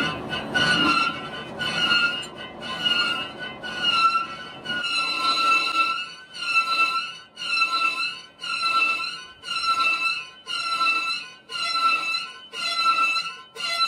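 Lathe cutting tool squealing against a rotating cast-iron brake drum as it machines the drum's inner face. The squeal dips and rises in pitch about twice a second.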